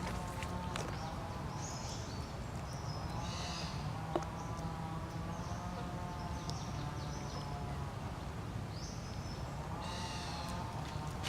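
Outdoor ambience: a steady low rumble with scattered short high-pitched chirping calls, and a single sharp click about four seconds in.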